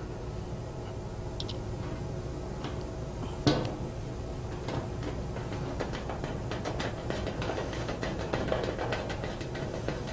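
A hand driver fastening a screw through the sheet-metal bottom panel of a chiller: one sharp knock about three and a half seconds in, then a quick run of small metallic clicks and scrapes as the screw is turned, over a steady background hum.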